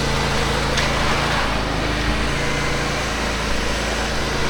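Small gas engine of a concrete power buggy running steadily, its pitch shifting slightly now and then.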